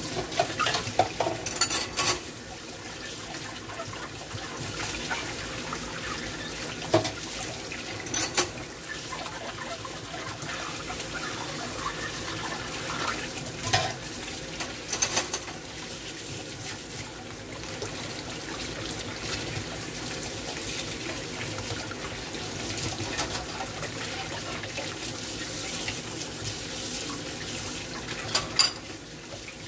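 Kitchen tap running into a stainless steel sink and a water-filled steel bowl, splashing as dishes are rinsed by hand, with a few sharp knocks of dishes being handled, the loudest near the start and near the end.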